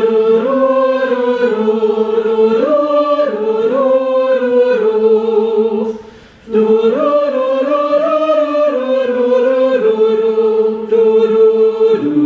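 Choir singing a passage a cappella in parts, held pitches moving in steps, with a short breath break about six seconds in. It is sung on a neutral syllable rather than on the text.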